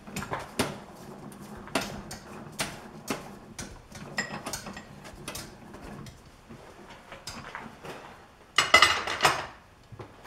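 Metal tools and parts being handled and set up at a metal lathe: scattered clinks and knocks, some ringing briefly, with a louder, longer clatter near the end.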